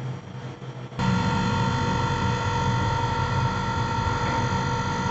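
Old Intex air conditioner's outdoor unit running: a steady hum with a whine over it, jumping suddenly louder about a second in and then holding steady.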